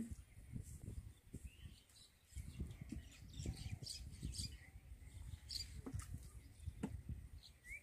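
Birds chirping in short, scattered calls over a low, uneven rumble, with one rising call near the end.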